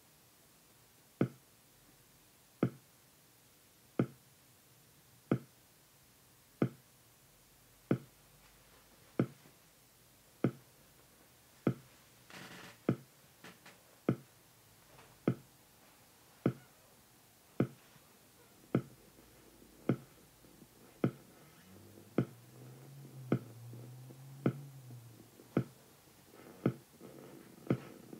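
A sharp click repeating at a steady pace, about one every 1.3 seconds, over a quiet room background. Near the end a low hum rises for a few seconds, and extra, softer clicks fall between the beats.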